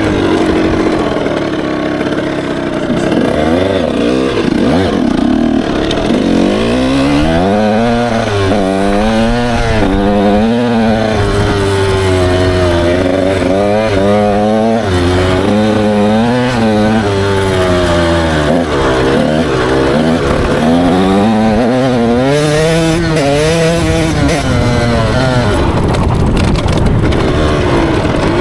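Dirt bike engine revving up and down over and over as the rider accelerates and rolls off around a dirt track, heard close up from on the bike.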